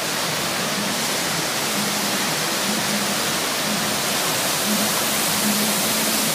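Landscaped waterfall with water cascading over terraced rock steps into pools, a steady even rushing.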